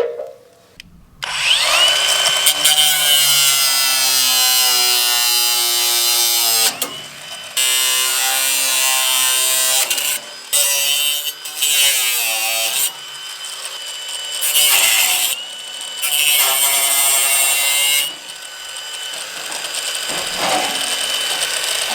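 Power drill running in several long bursts separated by short pauses, its motor pitch sagging and recovering as it works under load.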